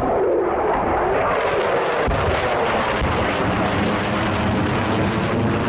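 Mitsubishi F-2 fighter's single jet engine at high power as the jet climbs steeply overhead: a loud, steady rushing jet noise.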